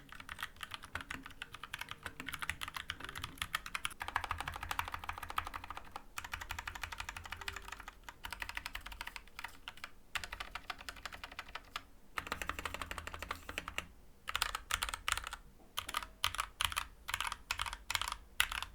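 Typing on an Akko 3061S 60% mechanical keyboard with Gateron Orange tactile switches and thick PBT keycaps: fast, continuous key clacks with short breaks, then single, evenly spaced key presses in the last few seconds. The keys sound a little hollow.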